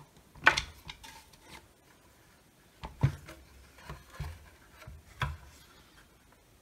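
The opened plastic housing of a Milwaukee M12 radio being picked up, turned and set down on a silicone work mat: a string of light knocks and clunks, the loudest about half a second in and again about three seconds in.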